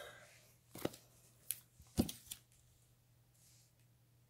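A few short crinkles and taps of plastic comic-book bags being handled, about four within the first two and a half seconds.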